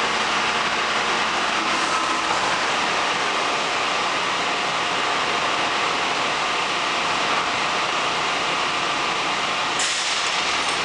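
WMATA Metrorail train standing at the platform, its onboard equipment running with a steady hiss. A sharper, higher hiss cuts in briefly near the end.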